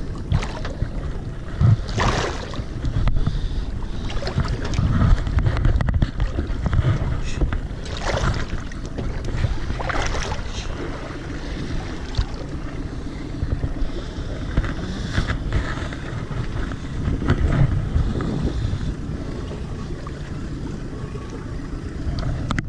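Wind buffeting the microphone over open sea water, a gusting low rumble with a few short, louder rushes of noise.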